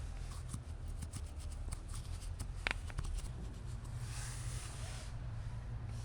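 Small handling noises from work at a motorcycle engine's oil filter: scattered light clicks and taps, one sharper click about two and a half seconds in, and about a second of rubbing noise near the middle, over a steady low hum.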